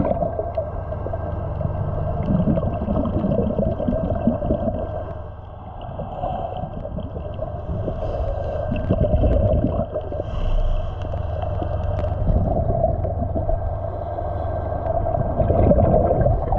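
Underwater sound of scuba breathing: gurgling bubbles from a diver's regulator, heavier now and then, over a steady low hum, heard through a submerged camera housing.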